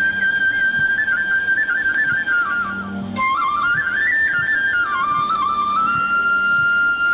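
A single high, pure-toned melody, whistle- or flute-like, moving up and down in small steps of pitch. It breaks briefly near the middle and picks up again lower.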